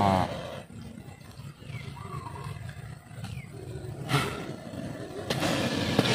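Cobra hissing: a short sharp hiss about four seconds in and a longer, breathy hiss near the end, against faint rustling of the plastic bag it is being coaxed into.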